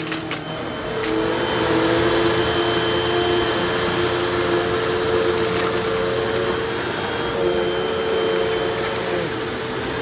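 A 15-year-old Hoover vacuum cleaner with a belt-driven brush running over carpet: a steady motor hum and whine with a rush of air. The sound dips briefly with a few clicks in the first second, then runs on evenly.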